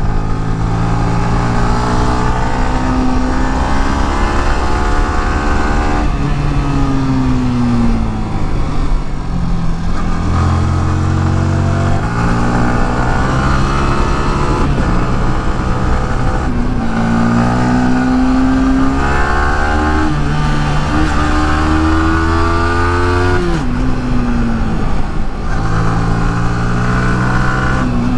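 Motorcycle engine revving up and dropping back again and again, the pitch rising through each gear and falling off into the bends, as it is ridden hard through hill corners.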